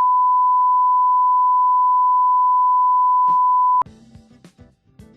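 A loud, steady electronic beep at one unchanging pitch, like a reference test tone, held for nearly four seconds and then cut off abruptly. Quiet music with plucked notes follows.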